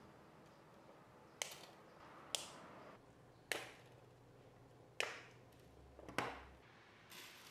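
Wire cutters snipping through 16-gauge round brass wire, one piece at a time: about six sharp snips, roughly one a second.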